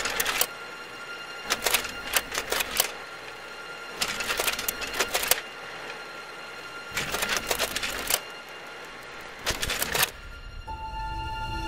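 Typewriter keys clattering in five short bursts of rapid strikes, each about a second long, over a steady droning music bed. Fuller music swells in near the end.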